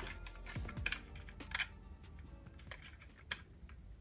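Die-cast metal toy cars clicking and clattering against each other as one is picked out of a cardboard box and handled, with a few sharp clicks.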